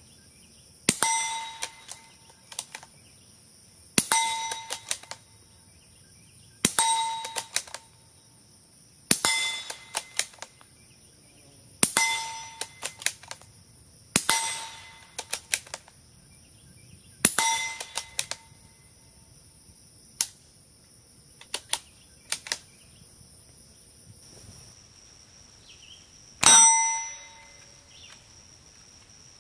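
Suppressed CZ 452-2E bolt-action .22 LR rifle fired eight times at a steel plate, each quiet report followed by the plate's clear metallic ring, which is louder than the shot itself. Short clicks of the bolt being worked come between shots, with a longer gap before the last shot near the end.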